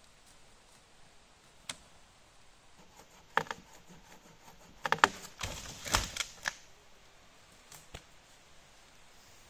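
Dry dead wood cracking and knocking as fallen branches are handled: a few single snaps, then a quick cluster of snaps with a dull thud about five to six seconds in.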